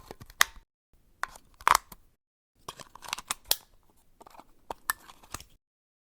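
Clicks and snaps of a battery being taken out of and fitted back into a device, in three short clusters with silent gaps between, the sharpest snaps about half a second and just under two seconds in.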